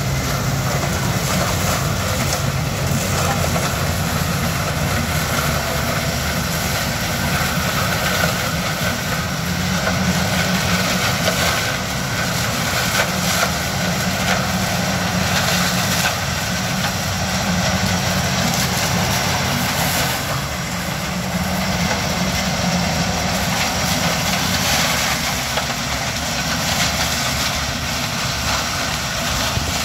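187 hp Yanmar HS2000 sugarcane harvester running steadily under load as it cuts and chops standing cane, mixed with the engine of the cane truck driving alongside: a steady low engine drone over a wide mechanical rush.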